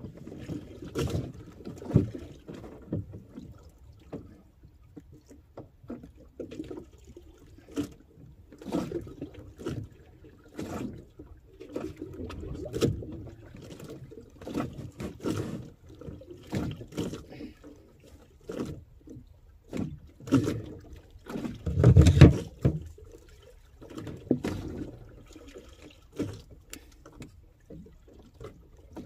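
Water lapping and sloshing against the hull of a small wooden outrigger boat (bangka), in irregular swells with occasional knocks; the biggest slosh comes about 22 seconds in.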